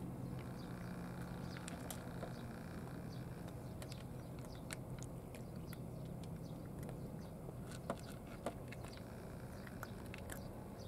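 A cat crunching dry kibble from a plastic bowl: a scatter of small, sharp crunches, with two slightly louder clicks about eight seconds in. A steady low hum runs underneath.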